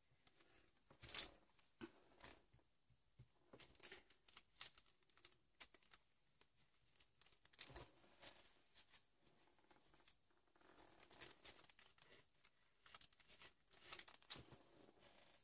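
Faint, scattered rustling and small clicks of hands working over a paper art journal page and scrunching a crumpled wipe, with a louder rustle about a second in and another near the end.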